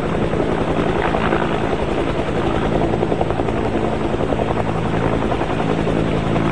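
Military helicopter hovering low over a helipad as it comes in to land: its rotor beats in a steady, rapid pulse over an even engine hum.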